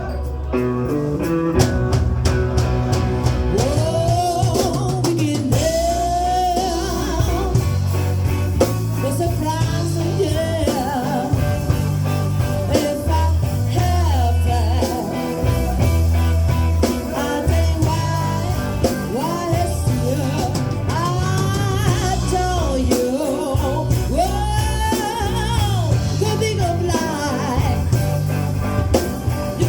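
Live band playing a pop-rock cover, with drum kit, electric guitar and a prominent bass line under a sung melody.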